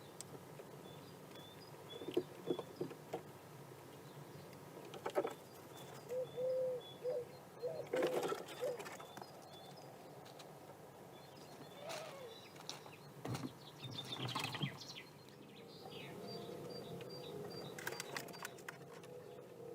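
Outdoor feeder ambience: a pigeon coos a few low notes about six to nine seconds in, over a faint small-bird chirp that repeats evenly through the first few seconds. Scattered knocks and taps come throughout.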